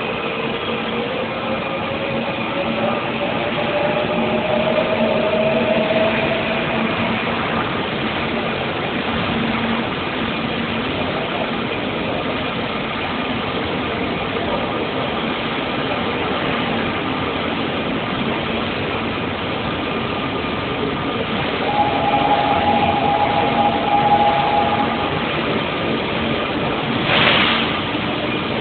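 Train running with a steady rumble, a motor whine rising slowly in pitch over the first six seconds. Later a steady two-note tone sounds for about three seconds.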